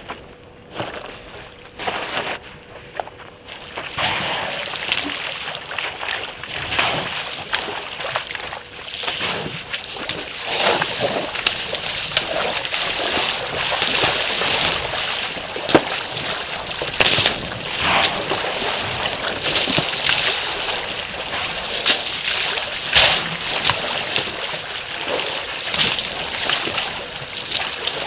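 African elephants wading and drinking in a shallow waterhole: water splashing and sloshing around their legs and trunks, with irregular bursts. The sound is sparse at first and becomes dense and continuous from about four seconds in.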